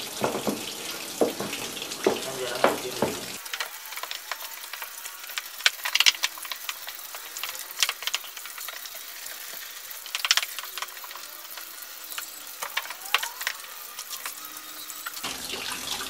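Water running and splashing inside the plastic tub of an Aqua QW-880XT top-loading washing machine while the tub is scrubbed by hand with a brush. The hiss is steady, with scattered scrapes and clicks, and it turns thinner about three and a half seconds in.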